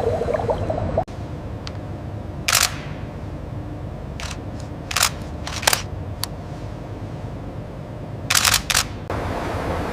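Several short, sharp clicks at irregular intervals over a steady low rumble, the last two in quick succession; the background changes abruptly about a second in.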